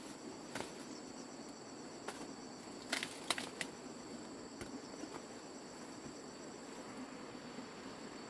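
Insects chirring steadily in two high, even tones, with a few sharp snaps and cracks, the loudest pair about three seconds in, as ears of corn are broken off their stalks.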